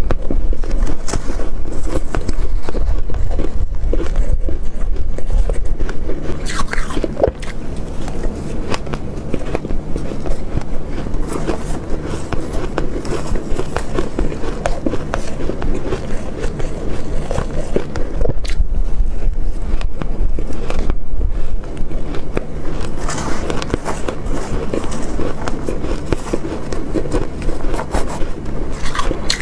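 Close-miked chewing and crunching of soft shaved ice, a dense continuous crackle, with a spoon scraping and scooping through the ice in the bowl.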